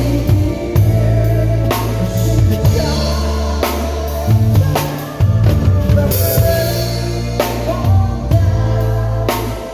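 Drum kit played along to a recorded song: kick drum and sharp snare hits at a steady beat over the track's bass, with singing in the backing track.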